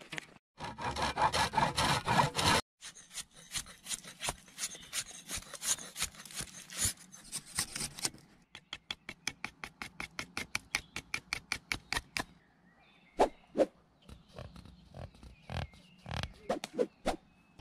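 A hand tool working a wooden bow stave in quick repeated scraping strokes, about four to five a second. Near the end come a few separate knocks on wood.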